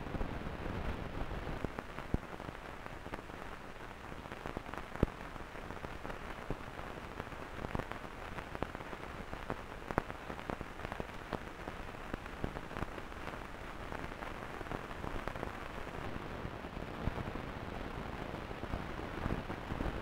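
Steady, dense crackle with frequent small clicks and pops, dull above the midrange. A few sharper pops stand out, about two, five, eight and ten seconds in.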